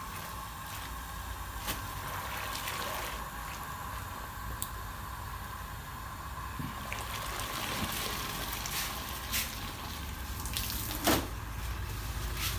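Dye liquid sloshing and dripping in a large steel pot as tied cloth is stirred and lifted out of the dye bath with a stick. A few sharp knocks, the loudest near the end, over a steady faint hum.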